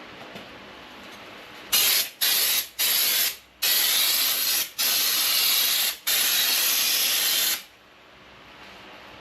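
Compressed-air spray gun firing Raptor coating in six bursts of hiss, each longer than the one before, starting about two seconds in.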